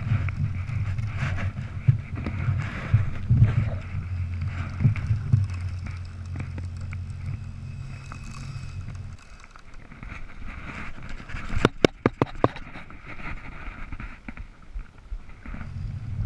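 Open-water noise aboard a fishing kayak: wind and chop against the hull and microphone, with a steady low rumble that cuts out after about nine seconds. Around twelve seconds in there is a quick run of sharp clicks.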